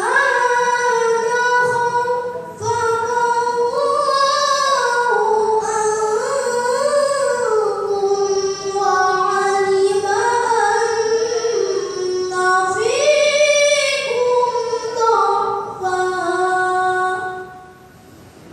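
A young boy reciting the Qur'an in the melodic tilawah style, one unaccompanied high voice holding long notes ornamented with sliding turns. He takes a short breath about two and a half seconds in, and the phrase ends near the end.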